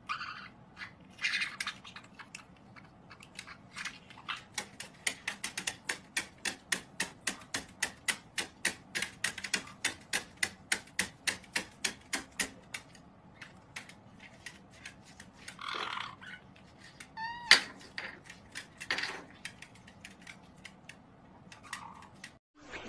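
White-bellied caiques hopping on a plastic tabletop: a fast, even run of taps, about five a second, lasting several seconds, with a few short squawks around it and one sharp knock about two-thirds in.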